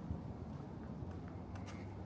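Quiet suburban street ambience: a low steady rumble with a few faint clicks about one and a half seconds in.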